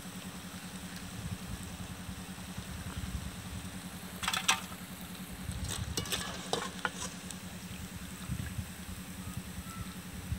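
Banana-flower pakodas sizzling as they deep-fry in hot oil, stirred with a wire-mesh spider skimmer. The metal skimmer clinks and scrapes against the pan several times around the middle, over a steady low hum.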